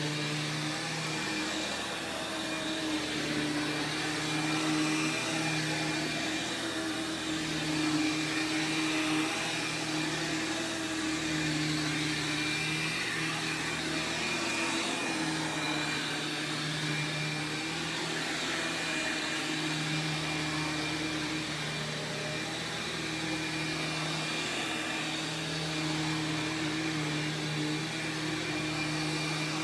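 Sharp Twin Energy EC-12TWT4 upright vacuum running, its 12-amp two-stage Ametek/Lamb motor giving a steady whine, with a low hum that swells and fades every second or two.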